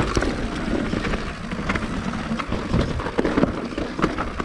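Mountain bike rolling fast down a rocky dirt single track: tyres crunching over dirt and stones, with scattered knocks and rattles from the bike as it hits bumps.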